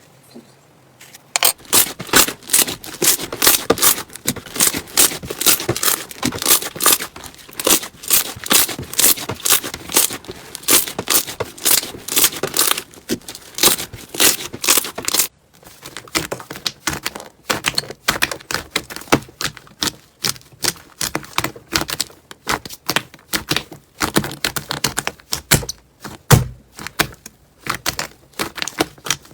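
Slime squeezed and pressed by hands, giving rapid crackling clicks and pops. About fifteen seconds in the sound breaks off and resumes with sparser, separate pops.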